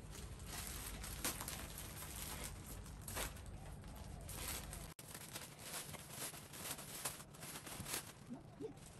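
Plastic packaging bags crinkling and rustling in irregular bursts as clothes wrapped in plastic are handled and unpacked.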